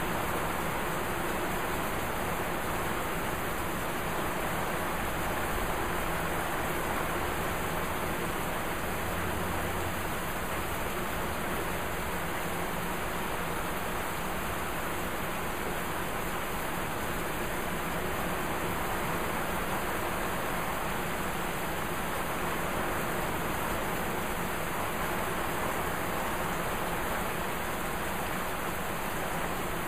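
Heavy rain pouring down steadily in a thunderstorm, an even, unbroken hiss.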